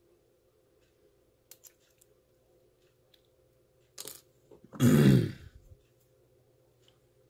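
Small metal clicks of tools working on a brass lock cylinder, a few light ticks in the first two seconds and a sharper one about four seconds in. About five seconds in comes one much louder burst lasting under a second.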